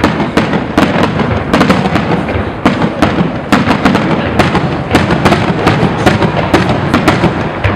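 Fireworks salute going off in a dense, continuous barrage: loud bangs and crackling reports several times a second over a deep rumble.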